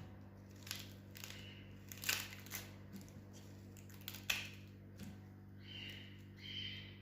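Dry papery skin being peeled by hand off a red onion: faint, scattered crackles and rustles.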